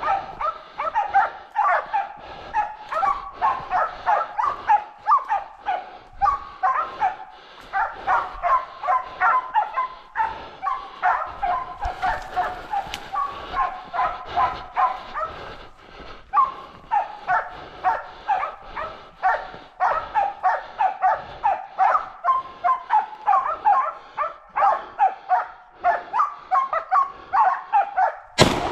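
Hunting dogs baying at a wild boar, barking continuously at several barks a second. A single loud shotgun shot near the end.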